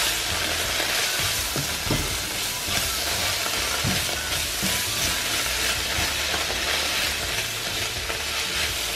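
Onions, carrots and tomato paste sizzling steadily in a hot nonstick pan while a silicone spatula stirs and scrapes them, with a few soft knocks of the spatula against the pan.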